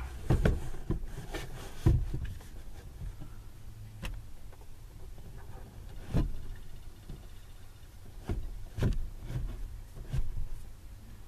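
Irregular knocks and bumps with some rustling as hands push a strap and a small TV back into a van's overhead ceiling cabinet, about eight separate thumps over a low rumble.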